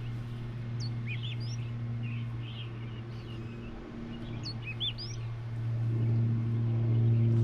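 Birds chirping in short whistled calls, in two bursts about a second in and again around four and a half seconds, over a steady low hum that grows louder near the end.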